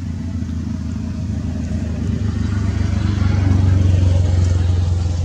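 A low engine rumble, like a motor vehicle running close by, swelling about three seconds in and easing off near the end.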